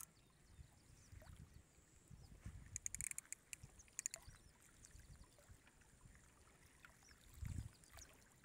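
Faint lapping of small waves at the water's edge, under a low rumble. A few light ticks come about three and four seconds in, and a soft low thump near the end.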